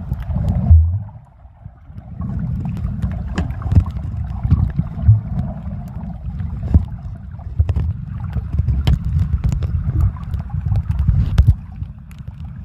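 Underwater audio: a muffled low rumble of water sloshing around a moving action camera, with scattered sharp clicks and crackles. The rumble drops away briefly about a second in, then returns.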